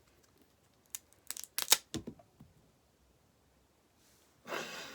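Fingers handling a small rubbery finger-puppet fidget toy, pushing its head into its body. A few short rubbing sounds come from about one to two seconds in, and a breathy noise follows near the end.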